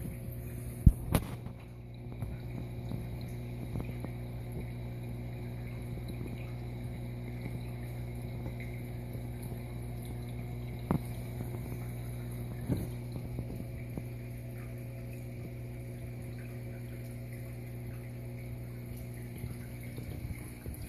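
Steady low electrical hum of running aquarium equipment. Two sharp knocks about a second in, and two fainter ones later, as the phone bumps against the tank or its stand.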